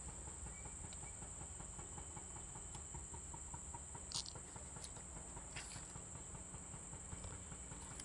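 Faint outdoor ambience: a steady high insect drone, with scattered light clicks and rustles, one sharper click about four seconds in.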